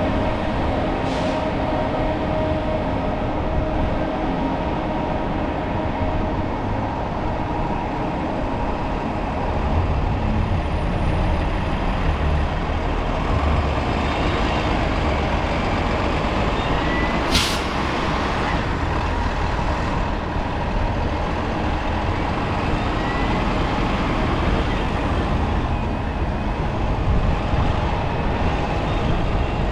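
A vehicle running steadily, with one brief sharp hiss of air about two-thirds of the way through.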